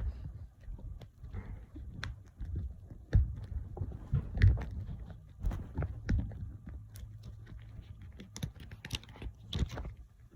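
Buttons on an Alert Works EAR-10WH weather radio pressed repeatedly while the radio is handled: irregular clicks and knocks, with a few louder bumps.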